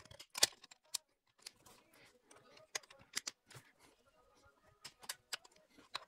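Irregular clicks and light knocks of hand tools and parts being handled during work on the car's engine, a dozen or so sharp taps spaced unevenly.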